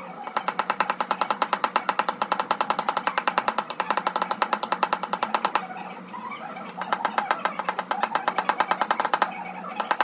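Rapid, steady tapping on a car's sheet-metal fender with a paintless dent repair tap-down tool and hammer, knocking down high spots, in runs of several taps a second broken by two short pauses. A steady low hum runs underneath.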